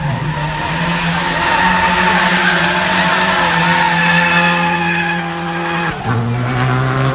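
Rally car drifting, its engine held at high revs in a steady note while the tyres squeal and scrub sideways. About six seconds in, the engine note drops sharply to a lower pitch.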